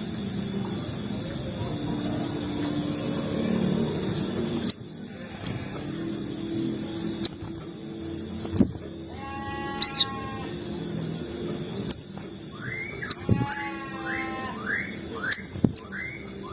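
Sogon birds calling: quick runs of harsh, curved chirping notes about halfway through and again in the last few seconds, with short sharp high 'cit' chirps scattered between them. This is the excited 'cuit cuit' calling used to provoke other sogon birds into song.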